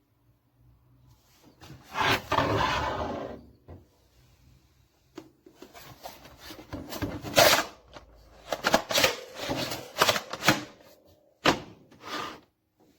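A folding camping stool being handled: a second or two of rubbing and scraping, then a run of sharp clicks and knocks, the loudest about seven and a half seconds in.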